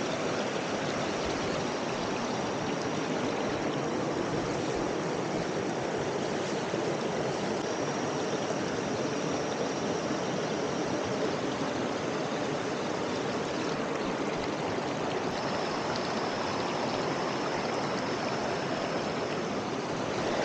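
Waterfall and stream water rushing steadily, an even unbroken wash of noise.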